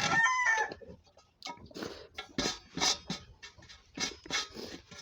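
A rooster's crow trailing off in the first second, then scattered short chewing and mouth smacks of someone eating rice.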